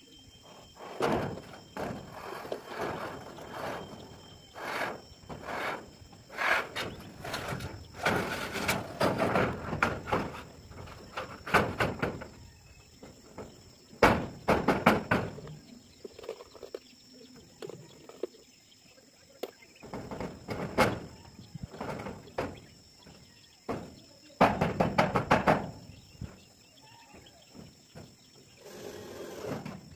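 Irregular knocks, thumps and rattling bursts on corrugated metal roof sheeting as roofers work on and move across it. The loudest clusters come about 14 and 25 seconds in. A faint steady high insect drone runs underneath.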